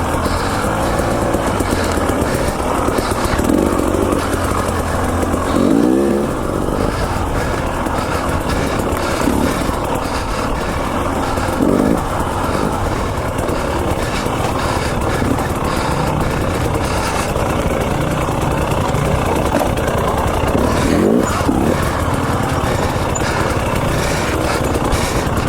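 KTM 300 XC-W TPI two-stroke dirt bike engine running under load on a trail ride, with the revs rising and falling in several short bursts of throttle.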